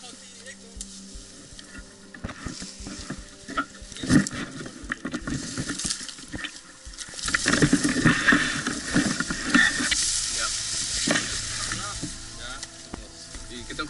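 Dry grass and reed stalks rustling and crackling against the body and camera as a person pushes through brush, an irregular dry crackle that grows louder in the second half.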